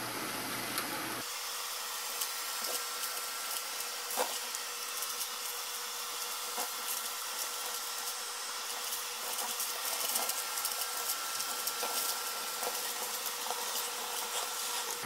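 Record Power CamVac dust extractor running steadily through a Clearvue CV-06 mini cyclone with a faint whine, its hose sucking up sawdust and wood shavings from a plastic pail. Many small ticks and rattles come from chips being drawn into the hose.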